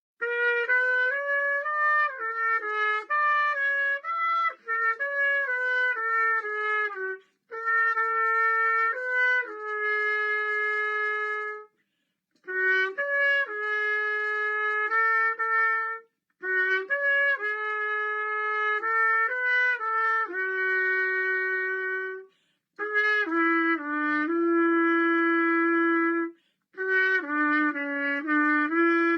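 A single wind instrument plays an unaccompanied melody with no backing. It moves in phrases of a few seconds, each followed by a brief pause for breath.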